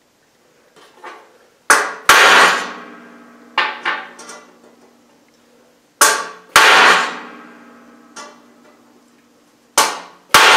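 Hammer striking a hand-forged cold chisel held on a 1/8-inch mild steel flat bar, scoring a guide line into the cold steel to follow when splitting it hot. About eight sharp metallic blows, mostly in pairs a few seconds apart, each ringing on.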